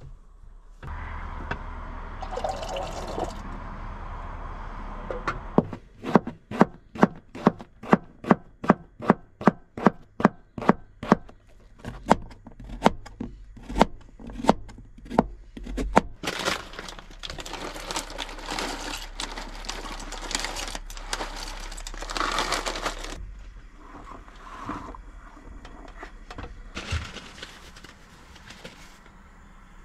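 Knife chopping vegetables on a cutting board in steady strokes, about two a second for some ten seconds. After that, several seconds of water pouring.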